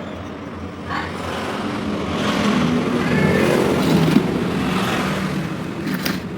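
Automatic scooter engine revving up over the first few seconds, then easing off, with a faint whistle from its cooling fan, which has been modified to whistle as it spins.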